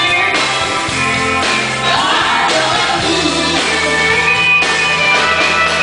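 A rock band playing live, with a lead singer over guitar, bass and drums.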